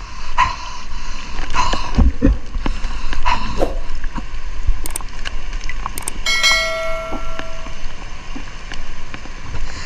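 Fast-flowing floodwater sloshing and slapping against a camera at the water's surface, with repeated sharp knocks. About six seconds in, a pitched tone with several overtones sounds for just over a second.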